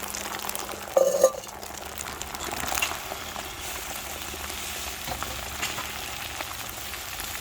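Beaten eggs sizzling in a hot frying pan as they are stirred and scrambled, a steady hiss, with a brief louder sound about a second in.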